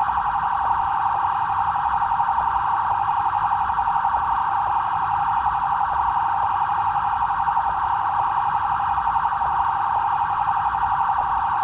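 BAEP police vehicle siren sounding its "trail" tone: a continuous, rapidly warbling electronic wail held in one pitch range, with no break.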